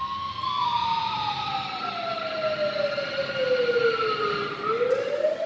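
Fire-engine siren wailing: one slow fall in pitch over about four seconds, then rising again near the end.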